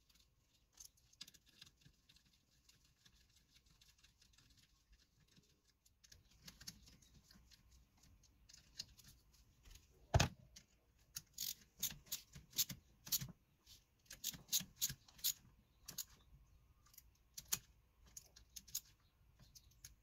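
Irregular metallic clicks and clinks from a hand nut driver turning the through-bolts on the end of a Denso starter motor's housing. They are faint at first, then come thicker, with the sharpest click about ten seconds in.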